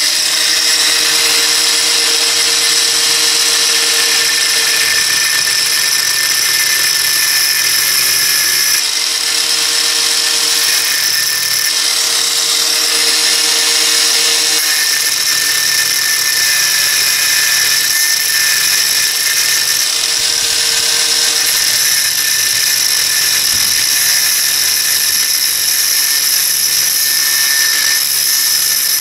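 Angle grinder with a thin cut-off disc cutting a lengthwise groove into the thread of an old steel head bolt held in a vise, making a thread-cleaning bolt for the engine block's head-bolt holes. A steady high-pitched whine whose tone shifts a few times as the disc bites into the steel and eases off.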